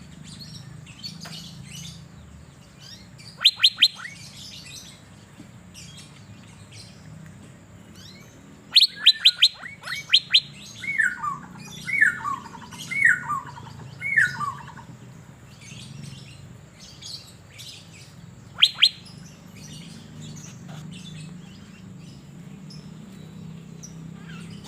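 Asian fairy-bluebird calling: loud, sharp whistled notes that drop in pitch, in quick clusters of three or four, repeated a few times, with a run of four falling two-note phrases in the middle and softer chirps between. A faint steady low hum lies underneath.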